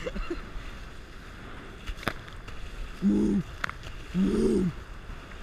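Two short wordless hooting calls from a person's voice, about a second apart, over a steady rush of wind and water from the catamaran moving fast through the sea. A couple of sharp clicks come in between.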